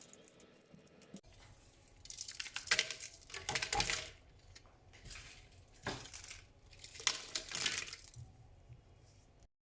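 Handling noises: rustling and crackling with light clinks, in a burst about two seconds in and another about seven seconds in.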